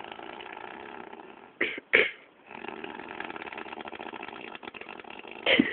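Elderly woman snoring, a rough rattling snore with an engine-like buzz, in two long rasping stretches. Short, sharp, louder sounds come about two seconds in and again near the end.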